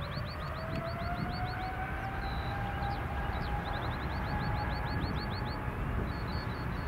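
Boeing 777 freighter's twin turbofan engines spooling up to takeoff thrust: a whine that rises in pitch over the first few seconds and then holds, over a deep rumble. Runs of quick high chirps from birds sound above it.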